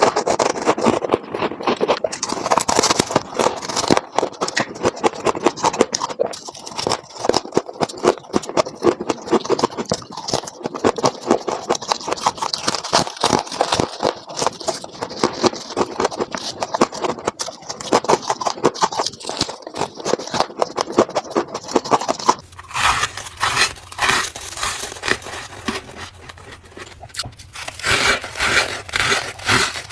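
Freezer frost ice being scraped and crunched, a dense run of quick scratchy crackles. About two-thirds of the way through the sound changes to separate, louder crunches with short gaps between them.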